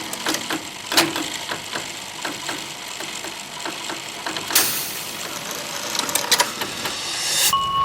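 Clockwork mechanism ticking and clicking at about four ticks a second, with a short whirring hiss about halfway through and a steady high tone coming in near the end.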